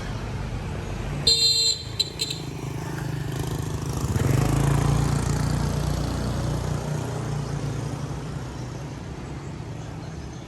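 Street traffic: a vehicle horn honks briefly about a second in, followed by a couple of short toots. Then a motor vehicle's engine passes, loudest around four to five seconds in, and fades away.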